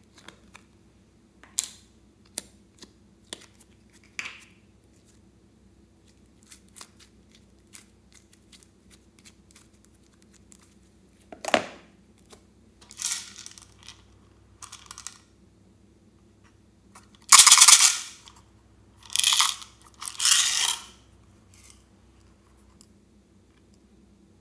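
Slime squeezed out of a plastic tub and pressed and kneaded by hand in a plastic bowl: scattered small clicks and pops at first, then a run of short squelches, the loudest and longest about three-quarters of the way through.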